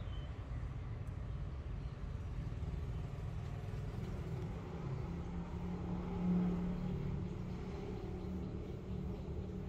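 Low rumble of a motor vehicle's engine, swelling to its loudest about six seconds in and easing off again.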